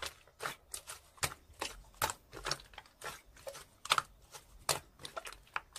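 Slime being squeezed and stretched by hand, giving irregular sticky clicks and small pops, a few each second.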